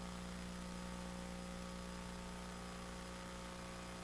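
Steady low electrical hum with a faint hiss underneath, unchanging throughout: mains hum picked up through the microphone and sound system, with no speech.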